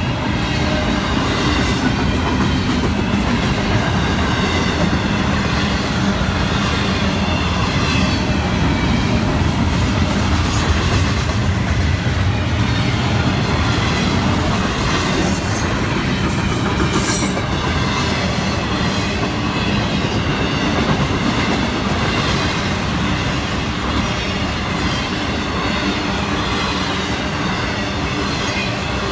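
Florida East Coast Railway intermodal freight train's double-stack container well cars and trailer-carrying flatcars rolling steadily past, steel wheels running on the rails without a break.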